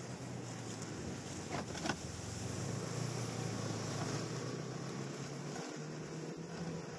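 Snowmobile engine running steadily under way over snow, with a constant rush of wind and track noise. Two brief knocks come a little under two seconds in.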